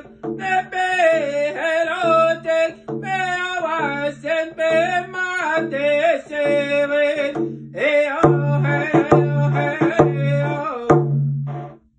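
A man singing in a full voice over a steady beat on a hide-covered hand drum struck with a beater. About eight seconds in the drumming grows louder with hard accented strikes about once a second, and the song and drum stop together just before the end.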